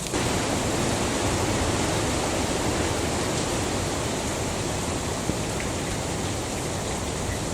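A steady rushing noise with no clear pitch or rhythm.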